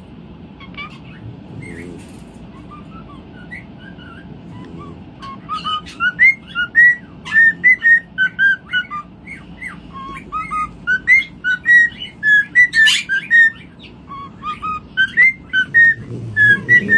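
A bird calls in short whistled chirps, a few scattered at first, then a quick run of rising and falling notes from about five seconds in.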